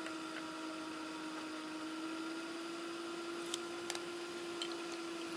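A steady machine hum at one constant pitch, with a few faint clicks about three and a half and four seconds in.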